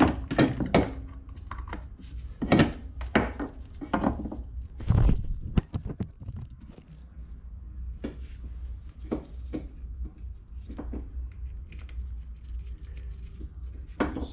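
Clicks and light knocks of a Yamaha Big Bear 350 carburetor's parts being handled as its cover is fitted. The knocks come thick for about five seconds, then turn to scattered taps.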